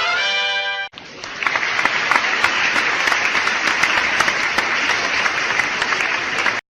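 A crowd applauding, a dense steady patter of many hands clapping, which stops abruptly near the end. It is preceded by about a second of the tail of a choir-like musical sting.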